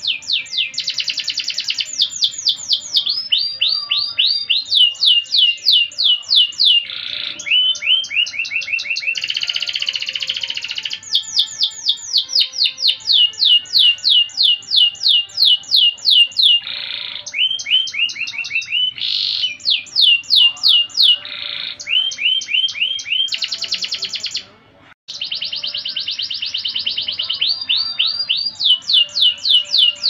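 Domestic canary singing without pause: long rapid trills of quick, falling notes, switching from one roll to another every second or two, with a brief gap about 25 seconds in.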